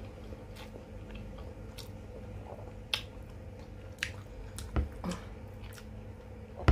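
A person chewing and biting chicken and rice close to the microphone, with scattered short wet clicks and smacks about once a second and a couple of sharper ones near the end.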